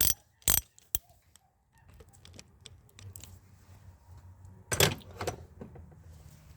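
Sharp metallic clinks of hand tools and parts being handled while removing the engine head temperature sensor: three quick clinks about half a second apart at the start, then a louder pair near the end.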